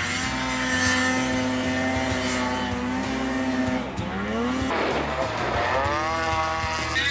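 Snowmobile engine running at high revs, holding a steady pitch for about three and a half seconds, then climbing in pitch as the throttle opens, with another rise a little later.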